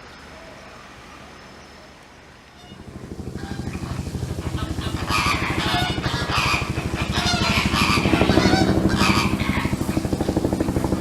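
A motor vehicle's engine approaching and running close by, a steady pulsing that grows louder from about three seconds in; shorter higher-pitched sounds come and go over it.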